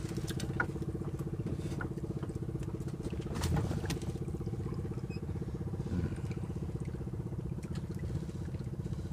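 Small fishing boat's engine running steadily at low revs, a fast even chug, with a few scattered clicks and a brief louder noise about three and a half seconds in.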